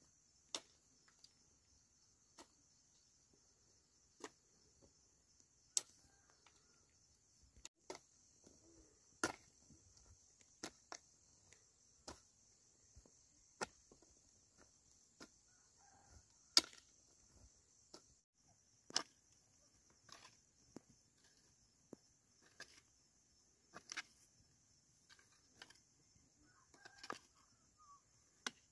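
Steady high-pitched insect chirring, with sharp, irregular knocks every second or two.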